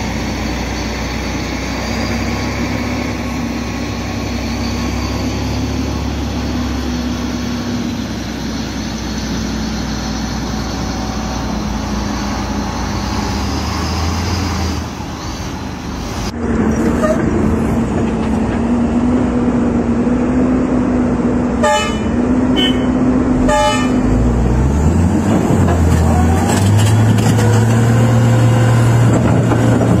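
Diesel engine of a SANY wide-body mining dump truck running as the truck drives slowly. Two short horn toots come about two-thirds of the way through, and the engine note rises near the end as it pulls away.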